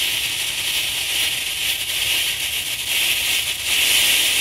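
Potassium nitrate and sugar rocket motor in a cardboard casing burning with a steady hiss, the hiss growing louder about three seconds in. It is venting smoke out of its top and side instead of through a nozzle, a burn its makers put down to wet fuel.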